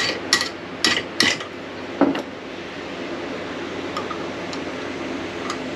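A hammer striking a line wrench on a rusted brake-line fitting, five sharp ringing metal blows in the first two seconds, to shock the fitting loose on the master cylinder held in a bench vise. A few faint metal clicks follow near the end.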